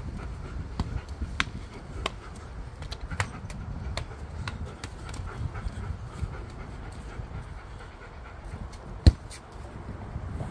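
A husky panting steadily, with scattered light clicks and one sharper knock about nine seconds in.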